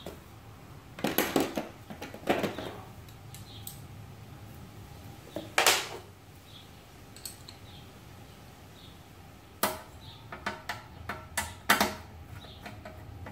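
Ratchet wrench clicking in several short runs, with a few metal clinks of the socket and bolts, as bolts are undone on a Briggs & Stratton mower engine's shroud.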